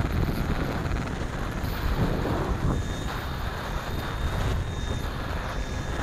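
Wind buffeting the microphone of a camera mounted on a radio-controlled model Van's RV-7, over the model's spinning propeller. A faint, steady high whine joins about three seconds in.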